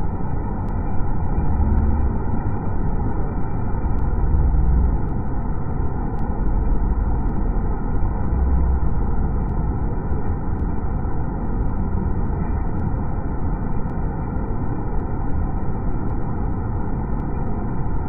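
Steady rushing roar of a large waterfall in monsoon flood, muddy water pouring over a rock ledge, with a few brief swells of low rumble.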